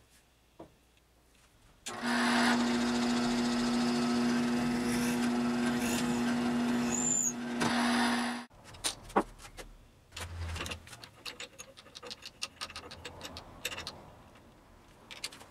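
Wood lathe's electric motor running with a steady hum for about six seconds, then cutting off abruptly. After it come scattered metal clicks and knocks of a screw chuck being fitted to the lathe's headstock.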